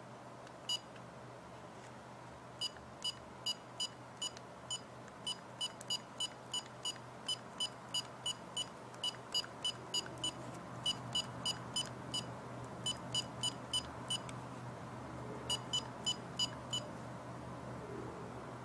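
HP 42S calculator's built-in beeper giving a string of short, high beeps, two to three a second, in runs broken by brief pauses.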